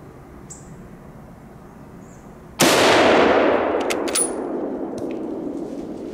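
A single shot from a CZ 550 bolt-action rifle in .30-06 about two and a half seconds in. The loud report dies away in a long rolling echo lasting several seconds. A few sharp metallic clicks follow within the next two seconds.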